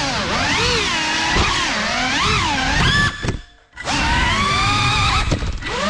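GEPRC CineLog 35 cinewhoop's brushless motors whining, the pitch sweeping up and down as the throttle is punched and eased. The whine cuts out for about half a second around three seconds in, then spools back up. A few sharp knocks come near the end.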